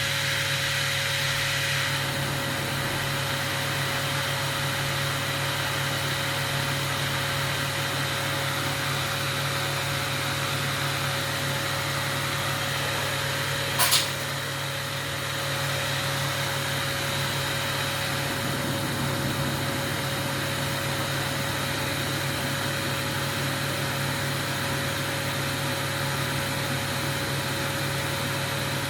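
Glassblower's gas burner flame hissing steadily over a low steady hum, with a single sharp click about halfway through.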